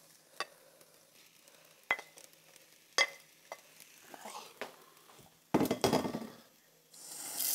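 Beef strips and sliced onions frying quietly in a hot pan, with a wooden spatula clicking and scraping against the pan as they are stirred. Near the end a tap starts running with a steady rush.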